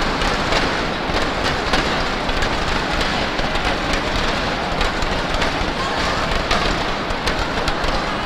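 Indoor sports-hall ambience: a steady murmur of crowd and hall noise with scattered sharp knocks and clacks.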